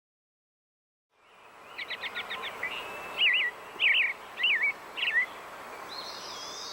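Birds singing over outdoor background noise that fades in after about a second of silence: first a quick run of six short chirps, then four warbling whistled phrases, and a rising call near the end.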